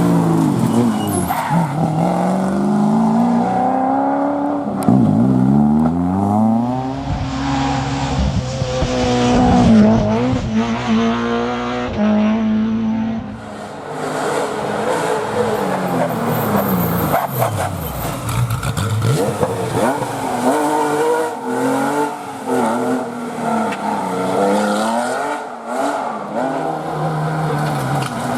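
Historic rally car engines revving hard at full attack, the engine note repeatedly climbing and dropping through gear changes and lifts. The sound dips briefly about halfway.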